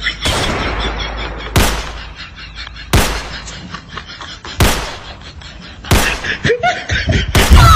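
A series of six sharp bangs, each with a short fading tail, coming about one every second and a half.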